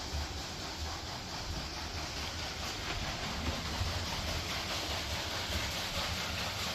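Steady rushing and low rumble of a turning water wheel and its falling water.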